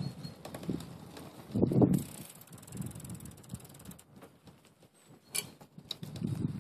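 Road bicycle being ridden over pavement: tyre rumble and rattling of the frame with light mechanical clicks. There is a louder bump about two seconds in, a quieter stretch just past the middle, and a sharp click near the end.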